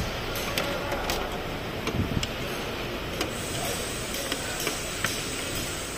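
Irregular light clicks and taps, like parts and tools being handled in a vehicle's engine bay, over a steady background noise, with a few louder knocks about two seconds in.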